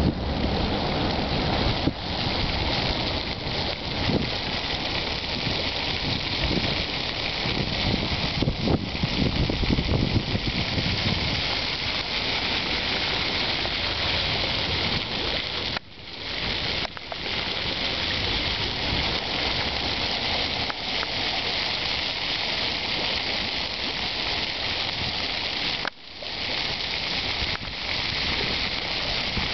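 Water running and splashing steadily through a fountain's shallow channels, a continuous hiss, with wind rumbling on the microphone over roughly the first ten seconds.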